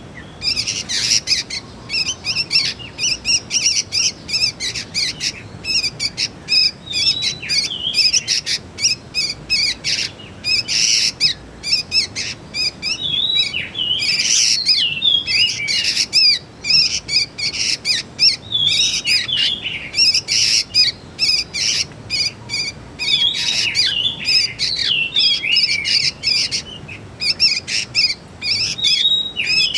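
Juvenile sooty-headed bulbuls calling: a dense, unbroken run of short, high chirps, several a second, mixed with quick gliding twitters.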